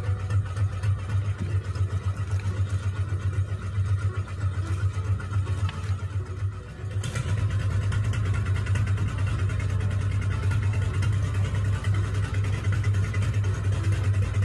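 An engine idling steadily with a fast, even throb, briefly dropping away about two-thirds of the way through before running on as before.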